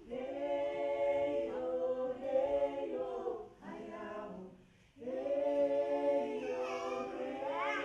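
Several voices singing together without accompaniment, in long held phrases with a brief pause about halfway through and a rising slide near the end.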